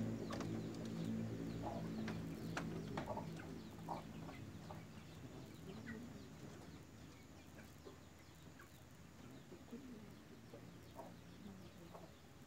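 Cats mating: a low, drawn-out growling moan that fades out over the first few seconds, followed by faint scattered clicks and short sounds.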